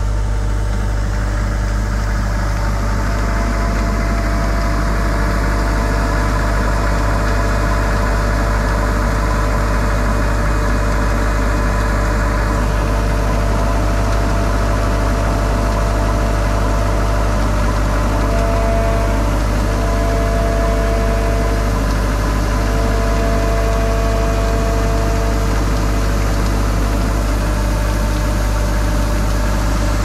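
Kartar combine harvester's diesel engine and threshing machinery running steadily with a deep constant hum while the unloading auger discharges threshed paddy.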